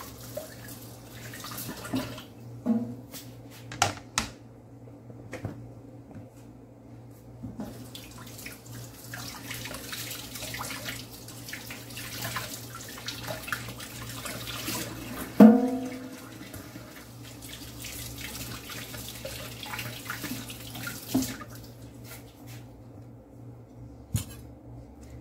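Kitchen tap running into a stainless steel sink while a plastic cutting board and a green bell pepper are rinsed under it. The water runs in two spells, with a pause of a few seconds near the start, and stops near the end. A few sharp knocks come between, the loudest about halfway through.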